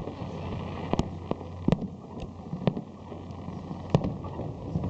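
Aerial fireworks bursting, about six sharp irregular bangs over a steady background rumble and low hum.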